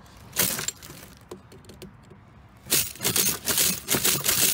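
Metal clicking and rattling as pliers pry at a payphone's coin box. There is one sharp crack about half a second in, a quieter stretch of small clicks, then a rapid run of clicks and rattles in the last two seconds.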